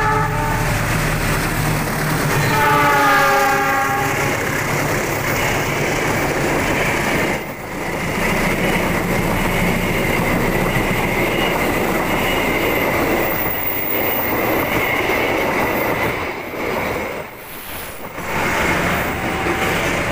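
Diesel locomotive horn sounding at the start and again a couple of seconds in. Then a long passenger train passes close by, its wheels clattering over the rail joints in a steady rumble, with a high steady ring over it for several seconds in the middle.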